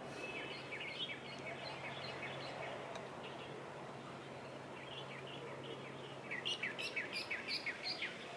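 A small songbird chirping: runs of quick, high, downward-slurred notes, with a louder, faster series of about ten notes near the end.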